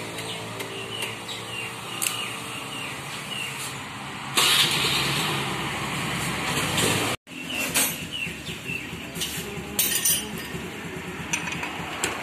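Motor vehicle engine running, growing louder in a noisy stretch that cuts off abruptly about seven seconds in, followed by a few clicks and clinks.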